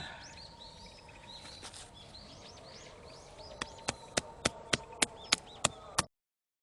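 Small birds chirping in quick runs of short rising-and-falling notes over a faint steady hum. Then come about nine sharp, evenly spaced clicks, roughly three a second, before the sound cuts off abruptly.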